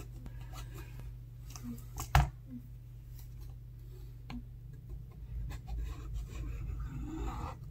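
A hand tool scraping old adhesive and broken glass off a phone's frame: small scratches and taps, one sharp knock about two seconds in, and denser scraping near the end.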